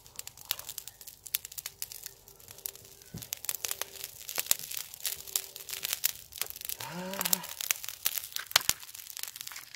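Open wood fire crackling and popping under pork belly being salt-grilled, in sharp, irregular clicks over a faint hiss.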